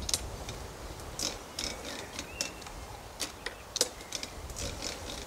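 Honda IZY lawnmower's recoil starter pulled gently a few times to prime the engine: a scatter of light, irregular clicks and ticks from the cord and starter, with no engine running.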